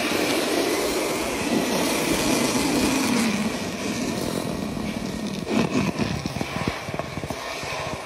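A stream of liquid poured from above into a glass jar of water, splashing steadily, then breaking into a few separate splashes and drips as the pour trails off about five to seven seconds in.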